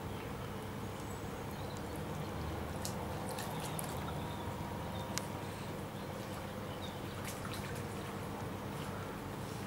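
Shallow river water trickling and lapping steadily, with a few faint sharp clicks and small splashes in the middle as an otter swims and dives at the surface.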